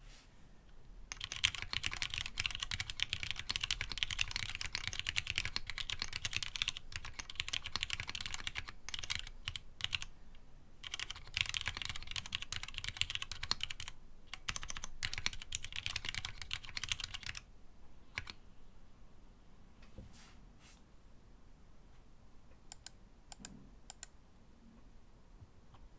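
Fast typing on a gasket-mounted aluminium-plate Ginkgo65 keyboard with stock Cherry MX Black Clear-Top ('Nixie') linear switches under PBT keycaps. It is a dense run of key strokes with a brief pause about halfway. In the last third it thins out to a few scattered single presses.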